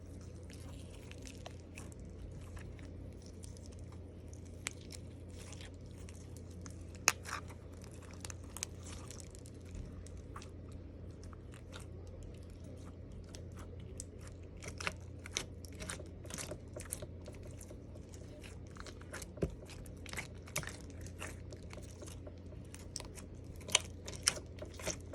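Slime being squeezed and worked by hand, giving irregular sharp clicks, crackles and pops that come thicker in the second half, over a steady low hum.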